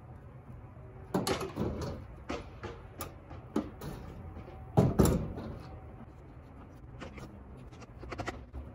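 Knocks and clunks of a car battery being set down and fitted into an engine bay, with the loudest pair of thuds about five seconds in and a quick run of small clicks near the end.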